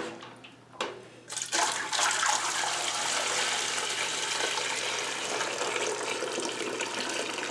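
Beef bone broth poured from an enamel turkey roaster into a metal stockpot through a pasta strainer, a steady splashing pour that starts about a second and a half in, after a short knock of the pan.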